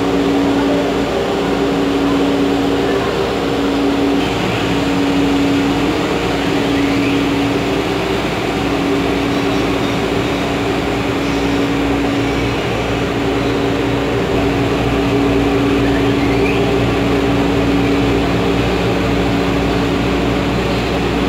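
Steady mechanical hum and rumble of a passenger train car, with several low steady tones from its machinery, one of which drops out briefly now and then.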